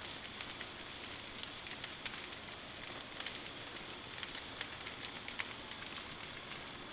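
Large bonfire of piled felled trees burning: a steady rushing with frequent sharp crackles and pops from the burning wood.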